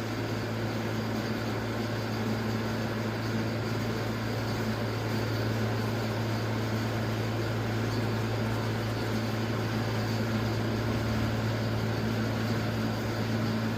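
Solvent parts washer running: a steady electric pump hum with a constant hiss of circulating solvent.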